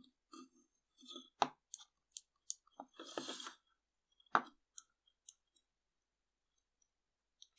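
Small plastic parts of a cordless screwdriver's switch housing handled and pressed together by hand: a scatter of sharp plastic clicks and taps, with a short rustle about three seconds in.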